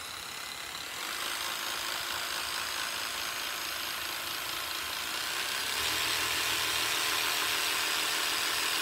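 Cordless jigsaw running, its blade clamp driving a golf ball epoxied on in place of the blade back and forth as a massager. A steady whirring buzz that grows louder, with a lower hum joining in, about six seconds in.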